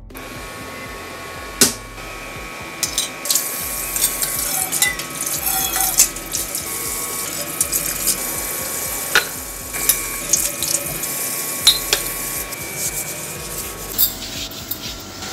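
Tap water running into a kitchen sink as a ceramic mug is rinsed under it, with a few sharp clinks and knocks of the mug and dishes against the sink.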